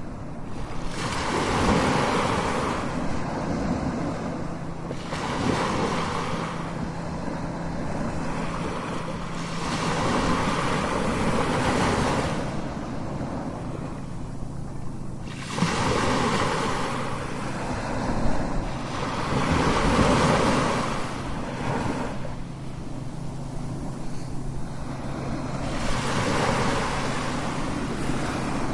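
Strong ocean waves crashing, each surge swelling and falling back, about six times in under half a minute.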